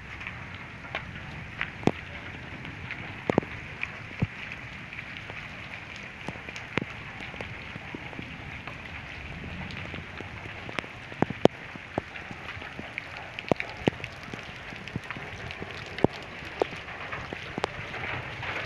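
Hailstorm: a steady hiss of hailstones pelting the ground, broken by many irregular sharp clicks of single stones striking hard surfaces.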